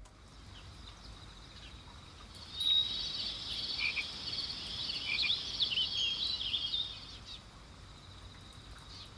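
Night-time chorus of small calling animals, a high chirping and trilling that swells about two and a half seconds in and fades near seven seconds, over a faint low rumble.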